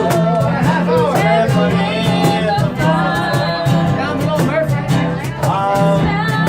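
Live folk music: a guitar strummed in a steady rhythm, with singing over it.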